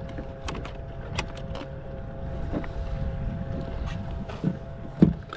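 Wind on the microphone and water against a fishing kayak, with a few sharp clicks in the first second and a half and two low thumps near the end, over a faint steady two-note hum.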